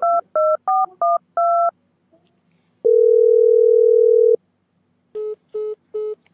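Mobile phone keypad tones as a number is dialled: five quick two-note beeps, then one long steady tone and three short beeps, the call failing because the phone at the other end is switched off.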